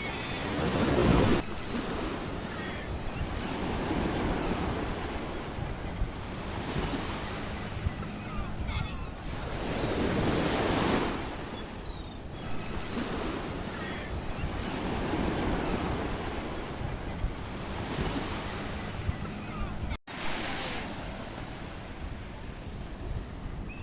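Sea waves washing and breaking, with louder surges about a second in, around ten seconds in and again around fifteen seconds. The sound cuts out for an instant about twenty seconds in.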